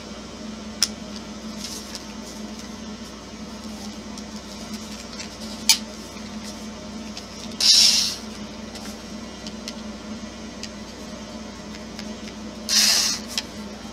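Power drill running in two short bursts of about half a second each, in the second half, backing small screws out of an RC crawler's chassis. A few light clicks of handling come between, over a steady low hum.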